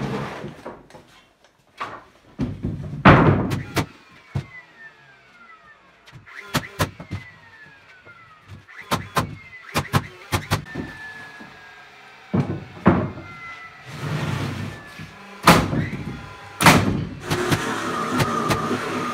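Lengths of 2x lumber thudding and knocking as they are dropped and laid on an OSB-topped work table, then a framing nailer driving nails into the framing with a run of sharp cracks.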